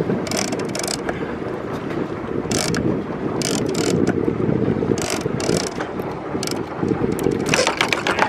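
Big-game fishing reel clicking and ratcheting in irregular bursts as a hooked shark pulls line off the drag, over wind noise on the microphone.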